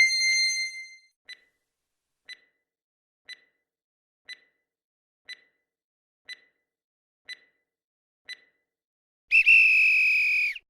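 Quiz countdown-timer sound effect: a chime ringing out, then eight short ticks a second apart, then a loud electronic alarm tone for about a second and a half near the end, signalling that answer time is up.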